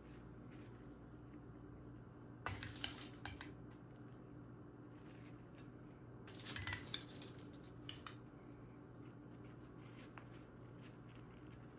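Kitchen utensils clinking and scraping against dishes in two short bursts a few seconds apart, over a faint steady low hum.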